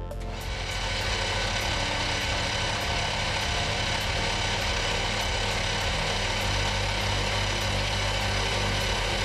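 A metalworking machine tool running steadily under power, a dense mechanical hum with a faint regular tick about twice a second.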